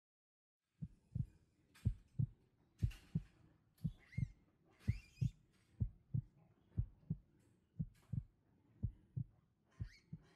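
Heartbeat sound effect starting about a second in: a steady lub-dub of low paired thumps, about one double beat per second.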